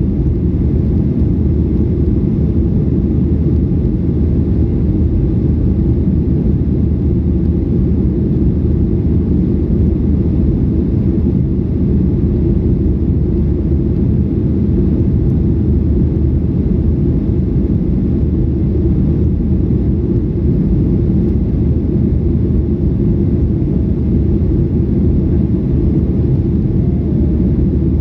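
Jet airliner in flight after takeoff, its engines and airflow making a steady, unchanging low rumble that does not rise or fade.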